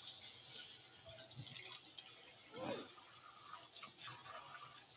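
Faint crackling and small clicks of metal tongs turning crisping chicken wings on a hot oven tray.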